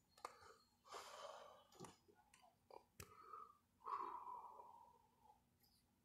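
Faint breathing and sighing close to the phone's microphone, with a couple of soft clicks.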